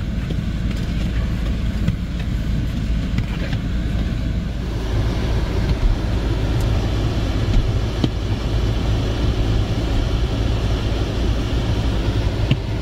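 Car engine and road noise: a steady low rumble that grows a little louder about five seconds in.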